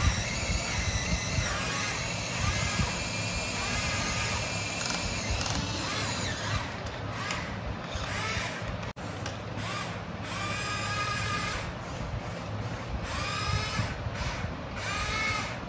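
An RC car's electric drive motor whining under throttle, its pitch rising and falling in a series of pushes as it climbs.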